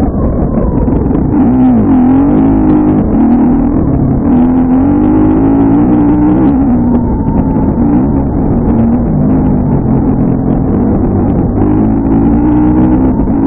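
Dirt bike engine running as it rides along a trail, its pitch dipping and rising several times as the throttle changes. It sounds muffled and dull, as if heavily filtered to strip out wind noise.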